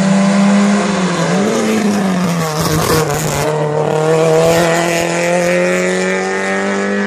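Small racing hatchback's engine running hard under full throttle. The pitch dips briefly at gear changes about a second in and again near three seconds, where there is also a short rush of noise, then climbs steadily as the car accelerates.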